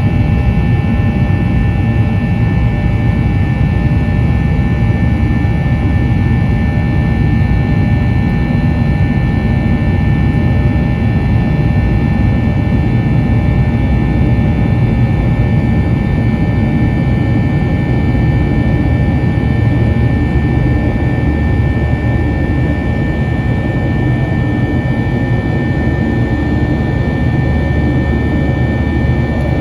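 Steady cabin noise inside a Boeing 737-800 in flight: a loud, even rumble of CFM56 turbofan engines and airflow, with a few faint high whining tones held steady throughout.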